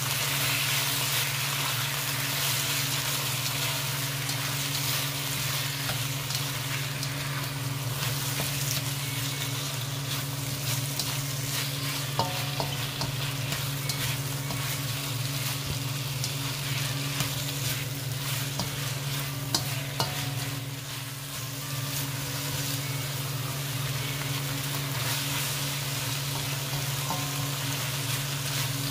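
Marinated shrimp sizzling in a hot wok while a spatula stirs them, scraping and tapping against the pan now and then. A steady low hum runs underneath.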